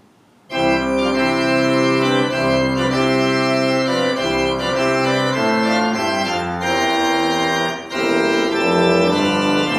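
Church organ starting a postlude right after the benediction, coming in suddenly about half a second in and playing full, sustained chords, with a brief drop in level near the end.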